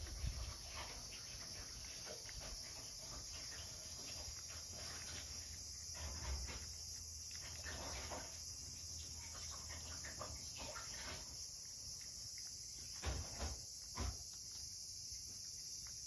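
A cat eating from a plate: a run of small wet chewing and lapping clicks. A few louder knocks come near the end, as its mouth or the plate bumps.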